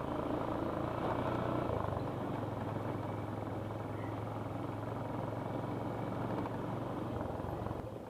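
A petrol vehicle's engine running steadily at low speed over a rough track, its note shifting slightly about two seconds in and easing off near the end.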